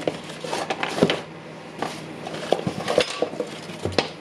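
Irregular clicks, clinks and knocks of tools and hard plastic and metal parts being handled as a cordless impact driver is taken apart.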